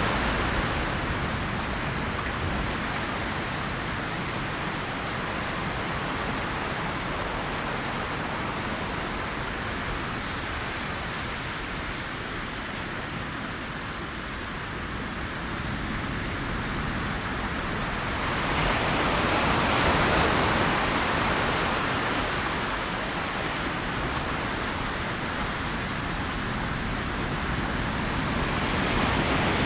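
Ocean waves breaking and washing on a shore, a steady rush that swells about every ten seconds as a wave comes in and fades as it draws back.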